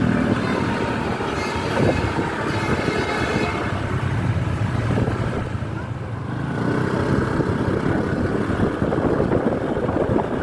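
Buses running past in convoy, engine rumble throughout, with multi-tone 'telolet' musical horns sounding on and off over it.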